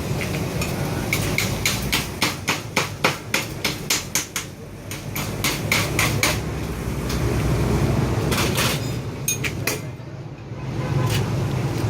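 Hammer striking metal in a fast run of blows, about four a second for roughly five seconds, then a few scattered strikes near the end.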